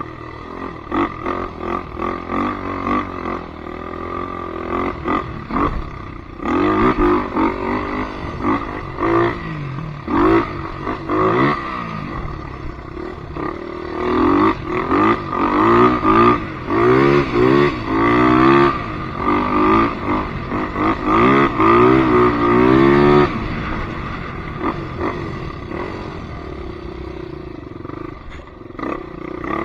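Polaris Predator 500 ATV's single-cylinder four-stroke engine revving up and down over and over as it is ridden, the throttle worked hardest in quick repeated rises and drops about halfway through, then settling to a steadier run near the end.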